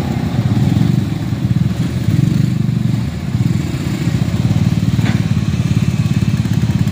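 Small motorcycle engines running at low revs close by, a steady, fast, even putter.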